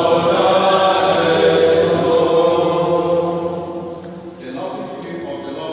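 A group of mixed voices singing a hymn together, holding a long chord that fades about four seconds in before the next phrase begins.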